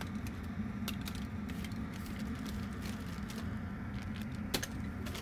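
Steady low hum of a workshop room with a few faint, short clicks and taps of small items being handled on a workbench, the sharpest about four and a half seconds in.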